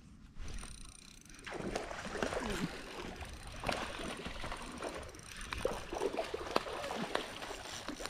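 Water splashing and sloshing at the river's edge, with many sharp clicks and rustles. It starts about a second and a half in.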